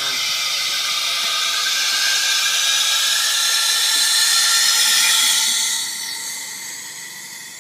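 Steady hiss of compressed air escaping from the truck, with a few thin whistling tones in it, tailing off over the last couple of seconds.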